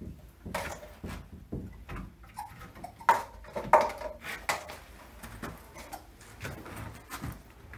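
Ring-tailed lemurs scampering and jumping about on wooden perches and a wood-chip floor in a small room: irregular knocks, scuffs and patters, with two sharper, louder knocks about three and nearly four seconds in.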